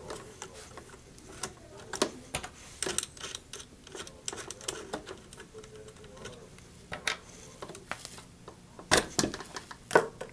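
Irregular small clicks and taps of the propeller nut and propeller being worked off the nose of an R. M. Young Wind Monitor by hand, with a couple of sharper knocks near the end.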